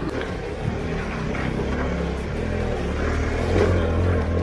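Motorcycle engine running at low revs in first gear, picking up slightly about three seconds in.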